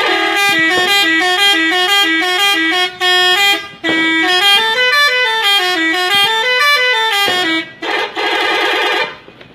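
SCH-721 musical car horn playing a quick melody of short stepped notes that climb and fall, with a brief break midway. Near the end it gives one long steady honk.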